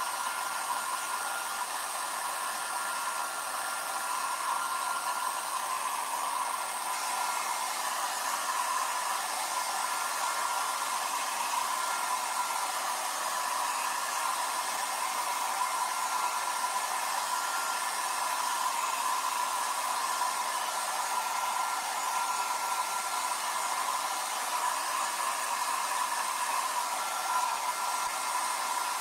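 Handheld hair dryer blowing steadily, drying freshly applied chalk paste on a silk-screen transfer.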